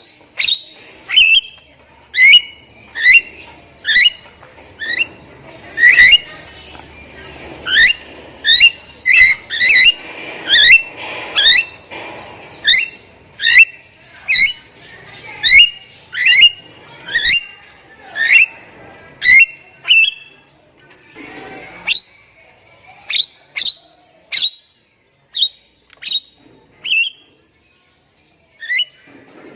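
Javan myna (jalak kebo) in full song: a fast series of short, sharp whistled and squawking notes, about one to two a second. The notes thin out after a short pause in the second half.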